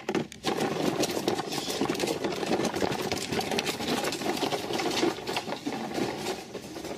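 Plastic toy dump truck being pushed over stone paving, its wheels giving a continuous fast rattle.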